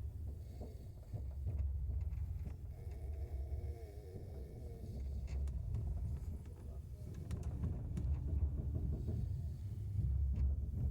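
A sleeping passenger snoring inside a moving train carriage. The snores swell every few seconds over the train's steady low rumble.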